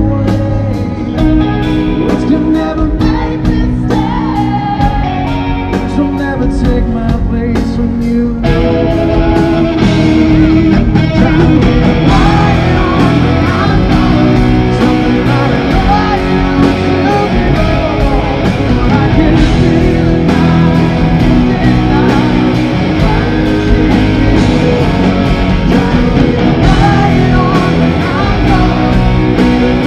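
A live rock band playing, with electric guitar, drums and a male lead vocal singing. About eight seconds in the full band comes in and the music grows fuller and louder.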